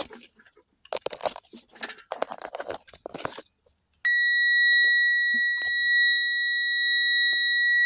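Rustling and crunching handling of wires and a test probe, then, about halfway in, a loud, steady high beep from a circuit-tester probe that holds for several seconds: the probe signalling voltage on the seat safety switch's signal wires with the key on.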